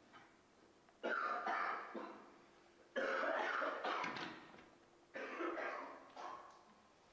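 A person coughing hard in four loud bouts, each starting suddenly and tailing off, about two seconds apart.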